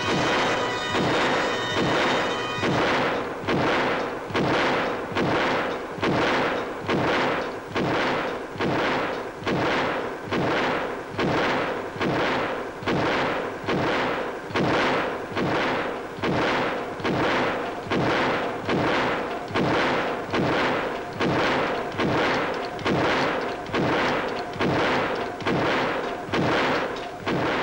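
Experimental diesel engine running slowly and steadily, each firing a heavy bang that dies away, about one a second. Music plays under the first few seconds.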